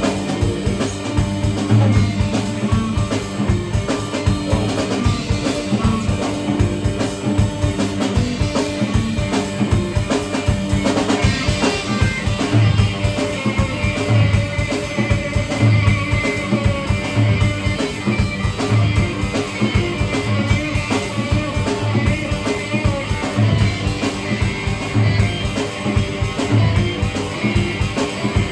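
Live instrumental passage with guitar and a drum kit played in a steady, driving beat.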